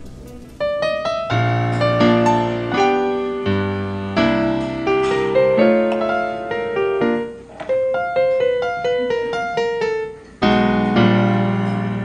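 Background piano music: a melody of struck notes that ring and fade over chords, starting about half a second in, with a new loud chord struck near the end.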